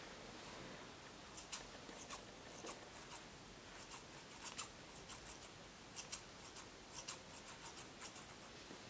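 Kitchen scissors snipping fresh dill: a faint run of short, irregular snips, starting about a second and a half in.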